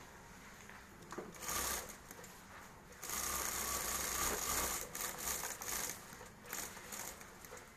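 Industrial flat-bed sewing machine stitching fabric in runs: a short burst about a second and a half in, then a longer steady run of about three seconds, then a few short bursts near the end.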